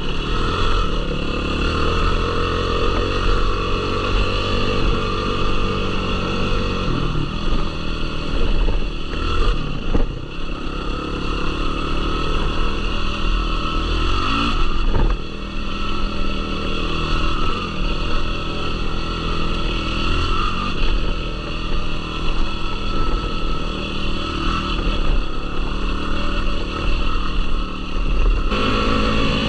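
Yamaha YFZ450R sport quad's single-cylinder four-stroke engine running under throttle, its pitch rising and falling. The pitch drops abruptly about seven seconds in and changes again near the end.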